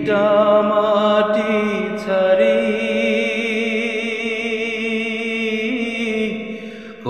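A man singing a Bengali folk song (polli geeti), drawing out long held notes with a wavering vibrato; the note changes about two seconds in and the phrase fades out near the end.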